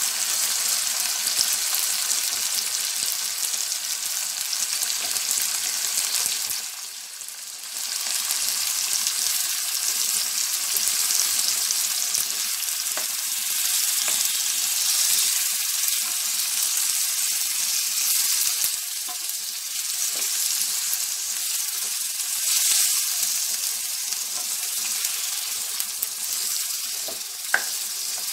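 Chopped tomatoes frying in oil in a pan with a steady sizzle, turned now and then with a spatula. The sizzle drops away briefly about a quarter of the way in, and there is a single sharp tick near the end.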